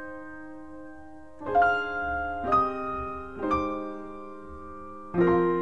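Slow piano music: one chord rings on from before, then four more are struck one at a time, each left to ring and fade.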